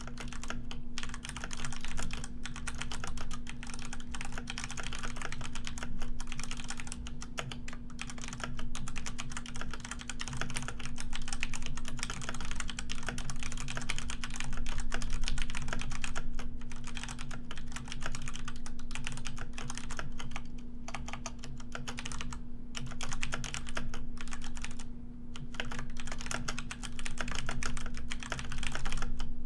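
Computer keyboard being typed on continuously, a fast run of key clicks with brief pauses every few seconds, over a steady low hum.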